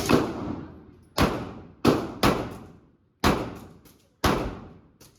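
Pistol shots on an indoor range, six sharp reports at uneven spacing over about four seconds, each ringing out in the range's echo.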